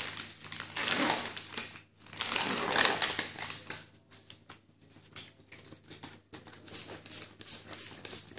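Sterile cotton-ball packet being handled and opened: two loud crinkling rustles of the wrapper in the first three seconds, then a run of small, quick clicks and rustles.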